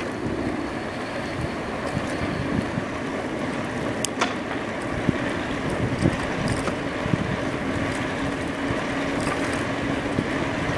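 Wind buffeting the microphone and road noise from an A2B Metro electric bike being ridden along a street, with a faint steady hum and one sharp click about four seconds in.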